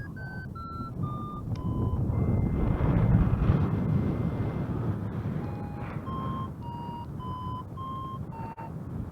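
Flight variometer beeping in short electronic tones whose pitch steps down, then a longer held tone about two seconds in, then more beeps at a lower pitch, the instrument signalling weakening lift and the change in climb or sink. Wind rushes on the microphone throughout, loudest about three seconds in.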